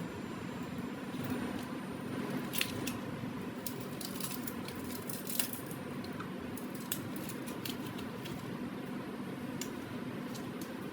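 Scattered light clicks and rustling from small objects being handled, over a steady background hum.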